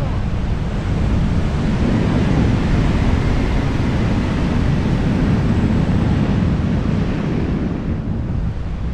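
Steady low rush of wind buffeting the microphone in flight, with no distinct engine note standing out.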